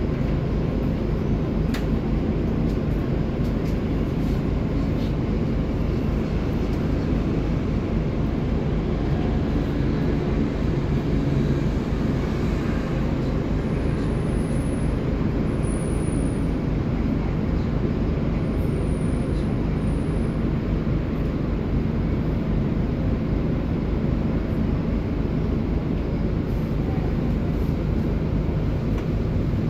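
Scania city bus heard from inside the passenger cabin, its engine and running gear giving a steady low rumble.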